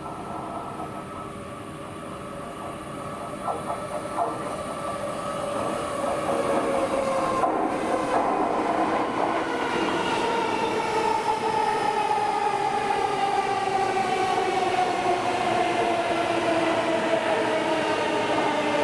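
Electric commuter train coming into the station and slowing, its traction motors whining in several tones that fall steadily in pitch, louder from about six seconds in. A couple of short clacks come a little before that.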